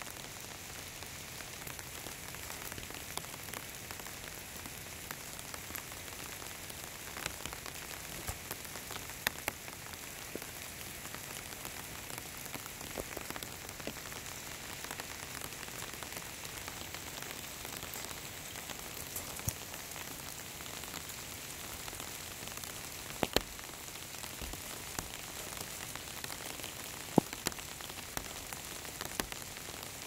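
Steady spring rain falling as an even hiss, with scattered sharp taps of raindrops striking an umbrella overhead; the loudest taps come about 23 and 27 seconds in.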